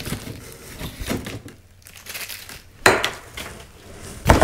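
Cardboard box and its packing inserts rustling and crinkling as hands rummage inside, with a sharp knock of cardboard about three seconds in and another near the end.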